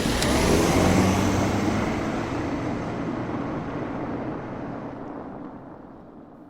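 Hybrid electric car passing and moving away: a full, noisy road sound that peaks about a second in, then fades steadily, growing duller, over the next several seconds.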